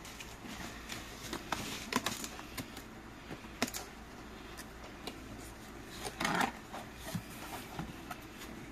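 Packaging being handled during an unboxing: scattered light clicks, taps and rustles, with a louder rustle about six seconds in.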